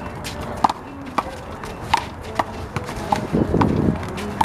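Rubber handball in a one-wall doubles handball rally: sharp smacks of hands on the ball and the ball on the wall and court, about two a second, each with a short hollow ping.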